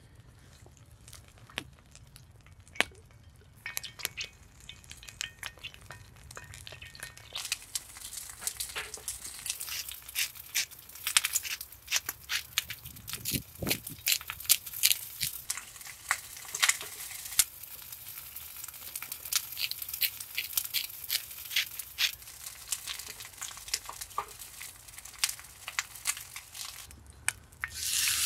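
A wood fire crackling under a cast iron skillet, then a hand grinder grinding salt and pepper onto a raw steak in dense crunchy clicks. Right at the end the steak goes into the hot pan and starts to sizzle.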